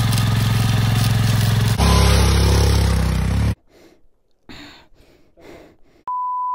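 Motorcycle engine revving hard, then cutting off suddenly about three and a half seconds in. A few faint short noises follow, and a steady electronic beep tone sounds near the end.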